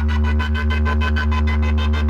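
Electronic bass test music: a heavy, steady low bass drone under a fast, evenly pulsing synth melody.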